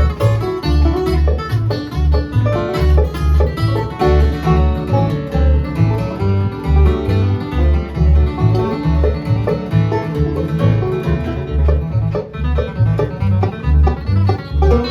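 Bluegrass band playing live: banjo and guitar picking over steady bass notes on the beat.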